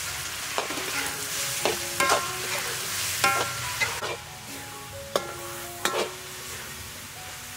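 Minced meat sizzling in hot oil in a steel wok, with a metal spatula scraping and knocking against the pan every second or so as it is stirred.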